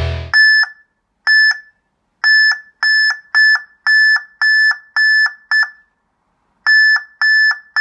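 Backup alarm of an amber LED warning beacon sounding about a dozen short, loud beeps at one high pitch. The beeps come unevenly, bunched in quick runs with a pause of about a second near the end.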